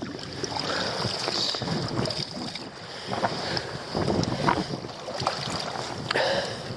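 Wind buffeting the microphone over shallow seawater sloshing among rocks, with a few scattered knocks.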